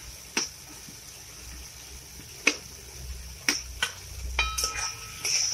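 A metal spatula clinks and scrapes against a steel plate and a metal kadai as fried potato pieces are pushed into frying masala. About five sharp clinks come at uneven intervals, and one late in the stretch rings briefly. A faint steady sizzle runs underneath.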